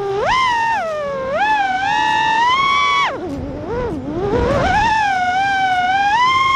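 FPV quadcopter's brushless motors whining, the pitch rising and falling with throttle changes. About three seconds in the whine drops away sharply as the throttle is cut, then climbs back to a high, fairly steady pitch.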